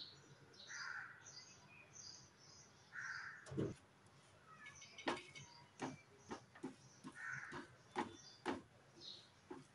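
Crow cawing three times in the background, with birds chirping faintly. From about a third of the way in, a metal spatula knocks and scrapes on the tawa in sharp irregular clicks as it spreads a dosa. These clicks are the loudest sounds.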